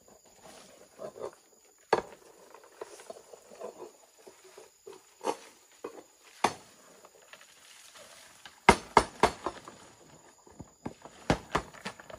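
Irregular sharp knocks, a few spaced seconds apart and then a quick run of four or five about two thirds of the way through, with faint rustling and handling between them.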